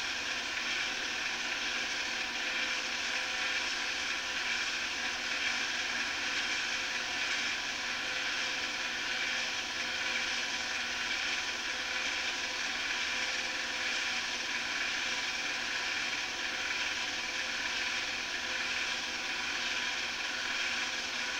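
Steady mechanical whir and hiss of a film projector running, with a few faint steady tones in it and no change throughout.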